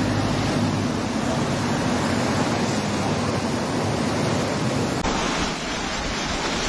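Rushing floodwater of a swollen, churning river: a steady, dense rush of fast-moving water. About five seconds in, the sound changes abruptly to a second stretch of floodwater rushing.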